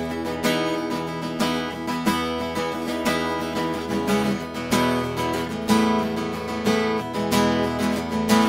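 Background music with a strummed acoustic guitar, played in a steady rhythm.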